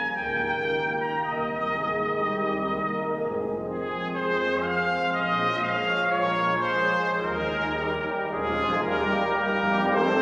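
Soprano cornet playing a solo melody in long held notes over a brass band accompaniment of sustained low chords.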